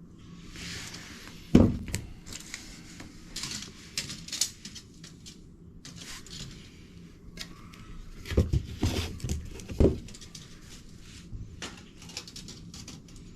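Hands-on plumbing work: scattered knocks and clunks with rustling and small rattles in between, as tools and pipe parts are handled and set down. The loudest knock comes about a second and a half in, and a cluster of heavy knocks comes around eight to ten seconds in.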